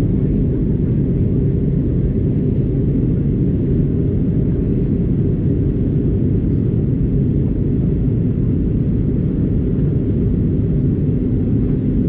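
Steady low rumble of airliner cabin noise heard from a window seat in flight, even in level throughout.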